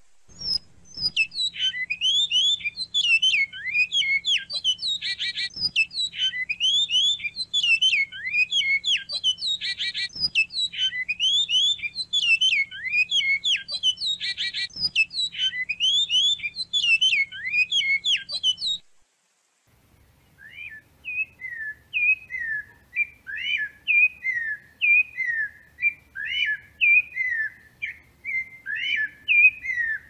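Two songbirds sing one after the other. The first is a long, fast, continuous twittering song with a buzzy roll about every five seconds, and it cuts off suddenly near two-thirds of the way through. After a short gap, a second bird sings a steady series of short, down-slurred whistled notes.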